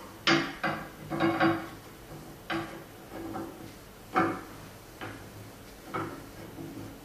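Irregular knocks and clunks of metal parts and screws being handled and fitted while an aluminium-extrusion CNC router table frame is assembled, the loudest near the start and about four seconds in.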